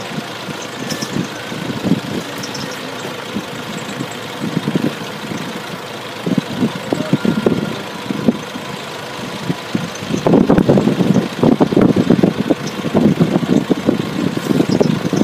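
Forklift engine idling steadily, then running louder and more unevenly about ten seconds in.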